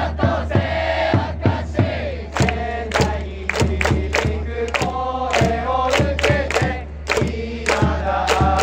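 Fukuoka SoftBank Hawks cheering section chanting a batter's cheer song in unison over its melody, with sharp beats about two to three a second.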